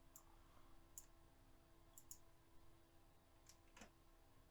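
Near silence with a few faint, sharp clicks, roughly one a second, from a computer mouse, over a faint steady electrical hum.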